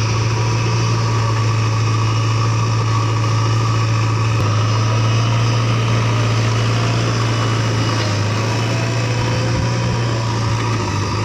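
Heavy diesel engine running at a steady speed, with a constant low hum.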